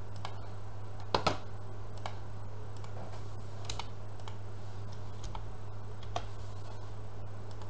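Computer keyboard keys pressed one at a time while a value is typed in, scattered single keystrokes with a louder pair about a second in, over a steady low hum.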